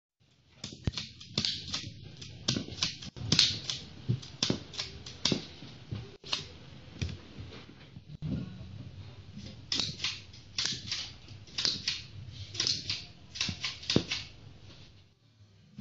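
Quick, irregular plastic clicks and snaps of a spring-powered Lego revolver being fired and its cylinder turning, with Lego brick targets clattering over, many clicks a second at times.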